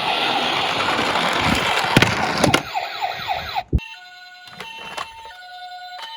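Toy cars rattling as they roll down a plastic slope, with sharp clicks of impacts, while an electronic toy siren wails in quick falling sweeps. A few seconds in, this cuts off abruptly and a toy ambulance's electronic two-tone hi-lo siren plays, alternating a higher and a lower note.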